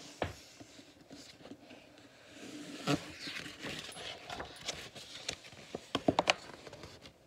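Pages of a large picture book being turned and handled: paper rustling and sliding about three seconds in, with a few sharp taps and knocks near the end.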